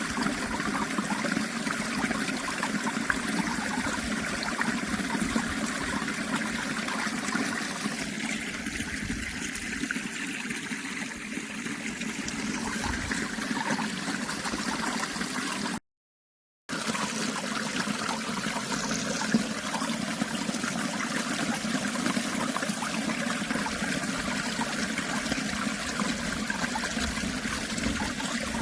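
Running water trickling steadily, cut off by a brief gap of dead silence a little past halfway before it resumes unchanged.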